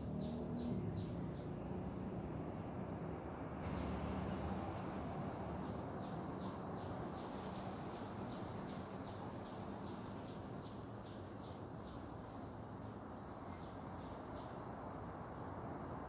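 A small bird chirping in quick runs of short, high notes, each dropping slightly in pitch, over a steady outdoor background hiss. A run comes near the start, a longer one from about a third of the way in to three-quarters, and a few more notes near the end.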